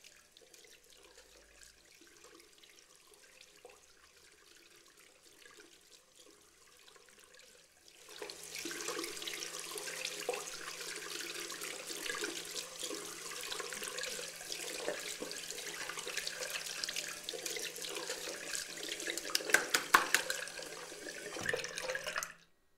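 Near silence for the first few seconds, then a bathroom mixer tap starts about eight seconds in and water runs into the sink while hands are washed under it, with a few sharper splashes or knocks near the end. The sound cuts off suddenly just before the end.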